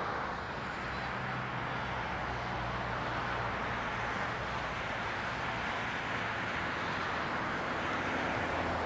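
Steady outdoor background noise with a faint low hum underneath, with no distinct events.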